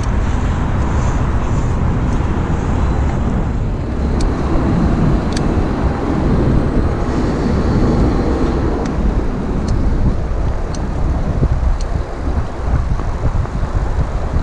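Street traffic and wind rumble on a bicycle-mounted camera's microphone while riding along a city road, with a few small clicks.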